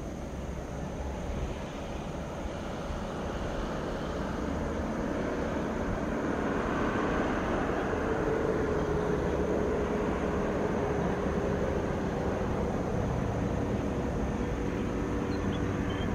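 Airbus A320 jet airliner on final approach with its gear down, its engines making a steady whine and rumble. The sound grows louder over the first half as the aircraft nears, then holds.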